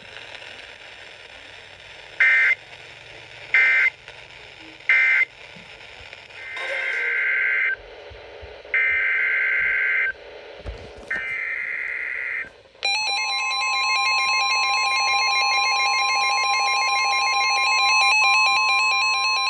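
Emergency Alert System signalling: three short screeching digital data bursts (the end-of-message code closing the previous warning), then three longer digital data bursts (the SAME header of the next alert). About thirteen seconds in, a steady loud attention tone begins and holds, announcing the next warning.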